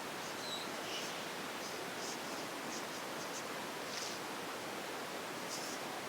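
Colour pencil strokes scratching on paper in short, irregular runs over a steady background hiss.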